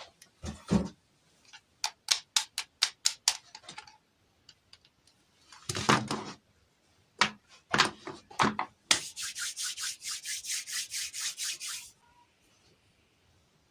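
Hands handling small objects while unboxing toy miniatures: a few soft thumps, a quick run of sharp clicks and taps, a brief rustle, more taps, then about three seconds of rhythmic scraping at around four strokes a second that stops near the end.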